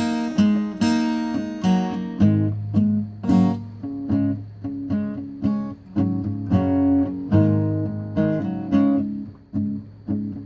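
Solo acoustic guitar playing an instrumental passage, with chords and notes struck about twice a second.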